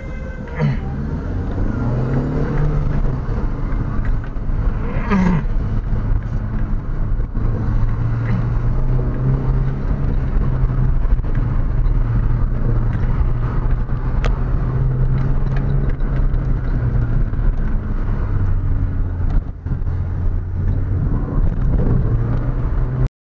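Car engine running and pulling uphill, heard from inside the cabin, its pitch rising about two seconds in and then holding steady.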